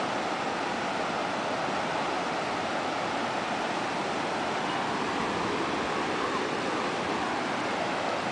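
Ocean surf breaking on a beach, a steady rushing wash of waves.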